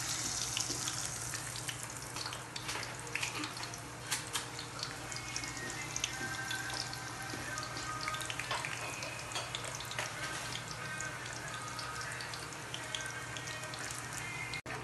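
Tap water running steadily into a kitchen sink, with scattered light clinks. It cuts off abruptly near the end.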